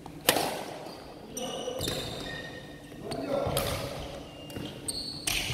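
Badminton racket striking the shuttlecock: a sharp crack about a quarter second in, the loudest sound, and another near the end. Between them come short high squeaks of court shoes on the wooden hall floor and footfalls, with the hits ringing on in the hall.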